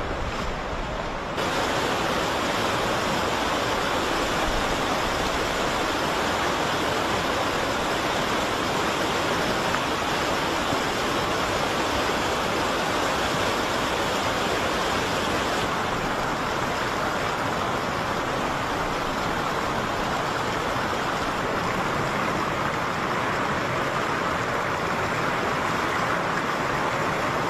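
Floodwater from the overflowing Seveso River rushing and pouring through a street in a steady rush, which gets louder about a second and a half in.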